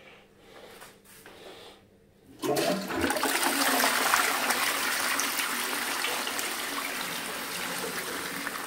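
Ceramic toilet with a lever-flush cistern being flushed. For the first couple of seconds there is little to hear, then about two and a half seconds in water suddenly rushes into the bowl and keeps swirling loudly, easing slightly toward the end.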